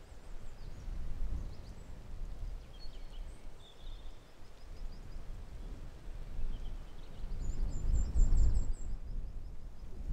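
Wind buffeting the microphone in uneven gusts, strongest about eight seconds in, with small birds chirping throughout and a quick trill of repeated high notes near the end.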